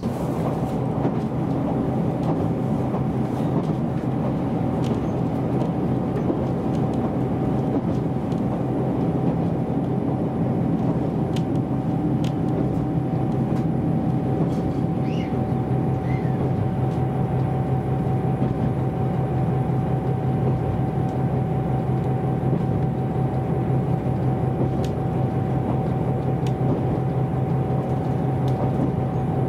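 JR Hokkaido KiHa 261 series diesel express railcar running at speed, heard from inside the passenger cabin: a steady drone of engine and wheel-on-rail noise with a constant tone over it.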